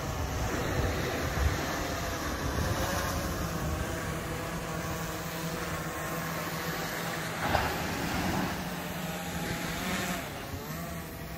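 Quadcopter fishing drone flying overhead, its propellers giving a steady multi-tone hum that shifts in pitch near the end as it changes speed, over breaking surf.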